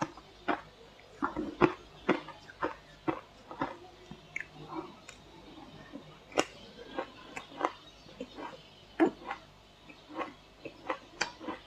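A person chewing mouthfuls of crunchy shaved ice: sharp, irregular crunches a few a second, with a short lull partway through.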